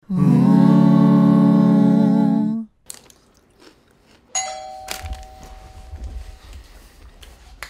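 A short, loud musical logo sting with a wavering tone lasting about two and a half seconds, then, about four seconds in, a doorbell chime rings once and dies away over about two seconds.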